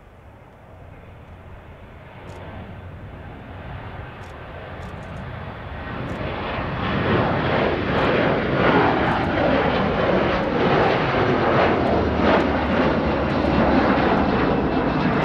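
Boeing 737-500 airliner's twin CFM56-3 turbofan engines at takeoff thrust as it lifts off and climbs past. The jet noise grows steadily louder over the first seven seconds or so, then stays loud with a slow wavering sweep in its tone.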